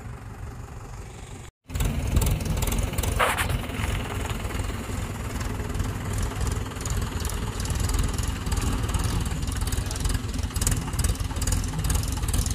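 Diesel engine of a red Mahindra tractor running close by, ticking over at idle with a steady low clatter; it comes in loud after a brief break about a second and a half in.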